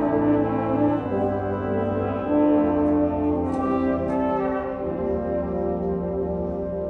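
Concert band of brass and woodwinds playing sustained, slowly changing chords, with the brass prominent.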